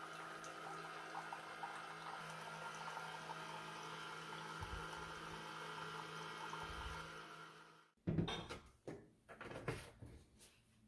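Keurig K-Mini Plus single-serve coffee maker brewing: a steady hum from the machine, with coffee pouring into a ceramic mug. The sound tapers off about seven seconds in as the brew finishes, then a few light knocks follow.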